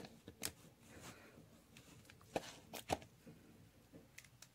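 Plastic bottle and funnel being handled: a few light knocks and clicks, spaced out, the loudest about two and a half to three seconds in.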